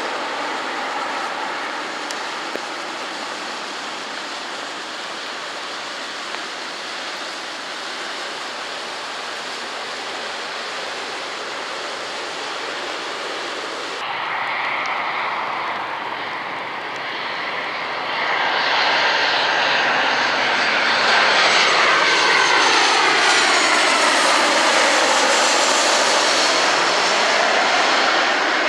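Steady hiss of heavy rain. From about two-thirds of the way in, an aircraft's engines grow loud as it passes close by, with a sweeping, phasing whine that falls and then rises again.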